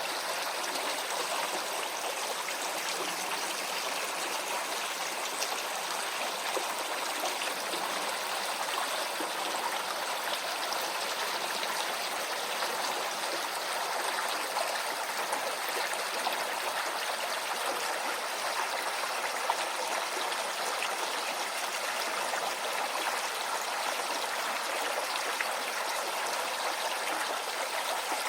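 Shallow stream flowing steadily, water rushing and trickling over stones with no break.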